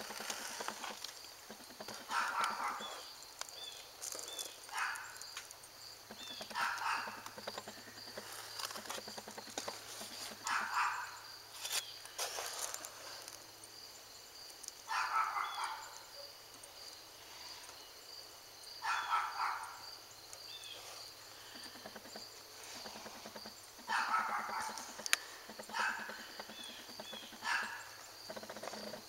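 An animal calling repeatedly: about a dozen short calls, each about half a second long, spaced irregularly a second to a few seconds apart.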